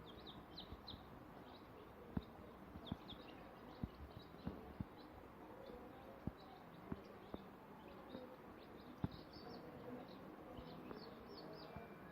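Day-old chicks peeping, many short, high cheeps overlapping, with occasional sharp knocks.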